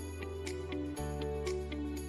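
Background music: a light instrumental track with a steady tick of percussion over sustained bass notes and a plucked melody.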